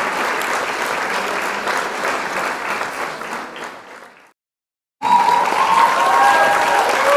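Applause, a crowd clapping, that fades out about four seconds in; after a moment of silence it starts again, with a few high gliding calls over it.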